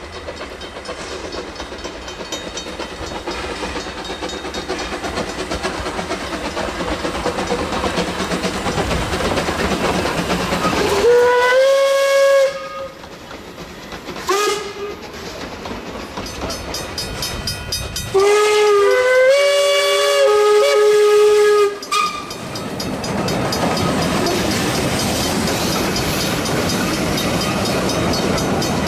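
Two steam locomotives double-heading a train, their running sound building as they approach, then steam whistle blasts: one about 11 seconds in, a short toot, and a longer blast sounding at two pitches from about 18 to 22 seconds. Afterwards the carriages roll past with a steady rumble and clickety-clack on the rails.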